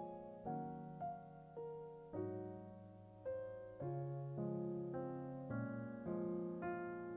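Background piano music: notes and chords struck about once or twice a second, each fading away before the next.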